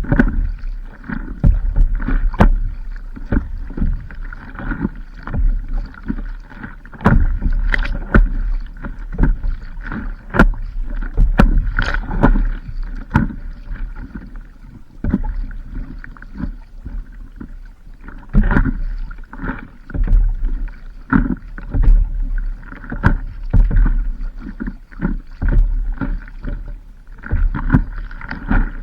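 Water slapping and knocking against a stand-up paddleboard on the sea, irregular knocks several a second over a low rumble.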